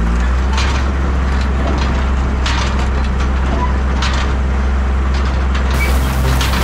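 New Holland 1069 self-propelled bale wagon running steadily in the field, with crackling and scraping in several short bursts as a small square straw bale is picked up and dragged up the loading chute.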